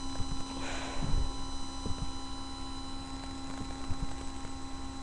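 Steady electrical hum picked up by a webcam microphone, with a short breathy hiss about a second in and a few faint low thumps.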